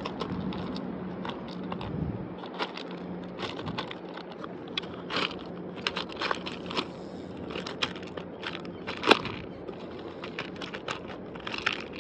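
Irregular small clicks and rattles of fingers picking through a container of split-shot sinkers to get a small one out.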